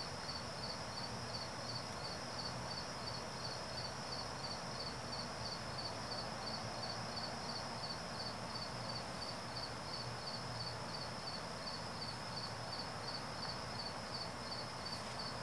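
Crickets chirping: a steady high-pitched trill pulsing at a rapid, even rate, over a faint hiss.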